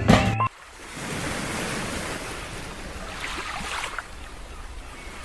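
A short burst of music cuts off about half a second in, leaving a steady rush of sea waves, with some wind.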